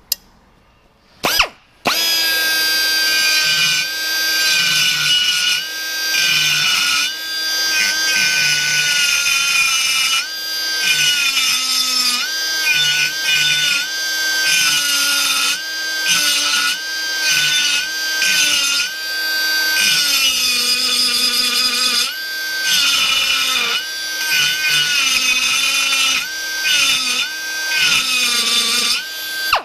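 Pneumatic die grinder with a carbide burr cutting into a cracked cast iron pump housing, burring out the cracks so they can be filled with braze. After a short blip about a second in, it runs as a steady high whine from about two seconds on, its pitch sagging each time the burr bites and climbing back as it eases off, every second or two.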